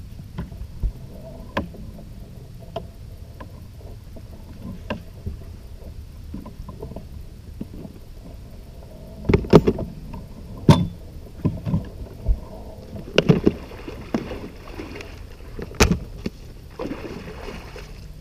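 Scattered knocks and clatters against the side of a fishing boat as a netted musky is handled alongside, with the loudest clusters of knocks about halfway through and a little later, and short bursts of splashing from the fish in the net near the end.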